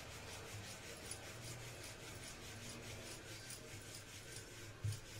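Wooden rolling pin rolling out paratha dough on a stone rolling board: faint, repeated rubbing strokes, with one dull thump near the end.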